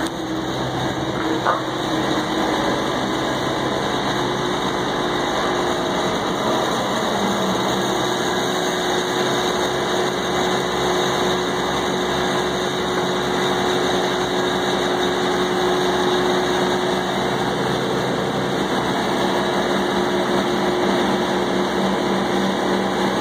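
Trailer-mounted wood grinder's engine idling steadily, a constant hum with no material being fed in.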